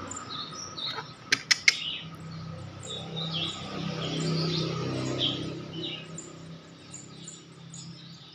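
Hungry nestling birds giving short, high begging chirps over and over while being fed crickets, with three sharp clicks about a second and a half in.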